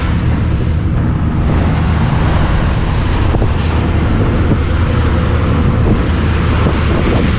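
Steady low vehicle engine and road noise, with wind rushing over the microphone.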